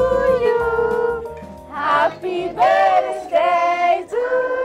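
Group of women and children singing together, in phrases of long held notes.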